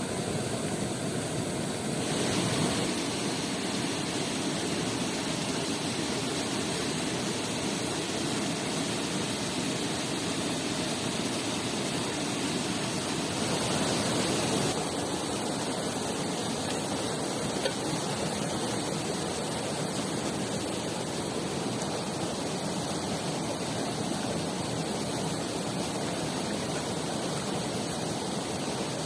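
Steady rush of flowing water from a mountain river or waterfall, its tone shifting slightly about two seconds in and again near the middle.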